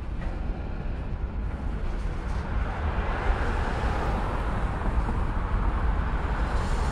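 Freight cars rolling slowly over a railroad bridge, a steady low rumble, with a road vehicle passing beneath that grows louder from about halfway in.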